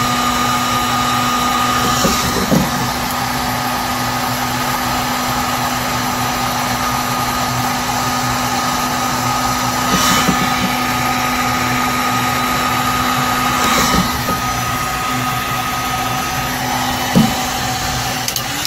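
Harbor Freight heat gun running steadily, an even fan-motor rush with a constant hum and whine, while it shrinks heat-shrink tubing over a wire. A few light knocks are heard along the way, and the gun switches off just before the end.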